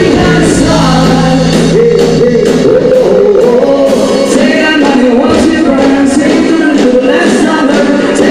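Live band playing with a lead singer: singing over electric guitar, bass and drums, recorded loud and close to the stage. A low held bass note drops out about two seconds in.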